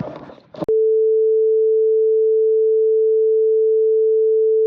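A steady electronic beep of one pitch, fairly low, switching on abruptly under a second in and holding without change.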